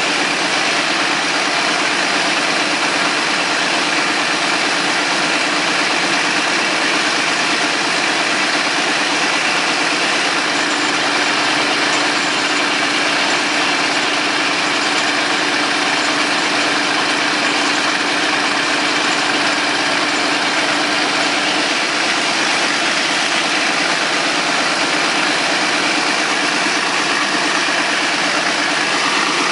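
Caterpillar D13000 diesel engine running steadily while driving a sawmill.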